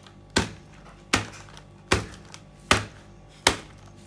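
A wooden mallet pounding plain biscuits in a plastic bag on a table, crushing them: five sharp thuds, about one every 0.8 seconds.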